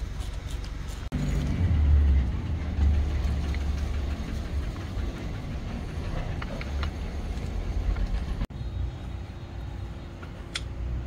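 Motor vehicle running with a steady low rumble, twice cut off abruptly for an instant.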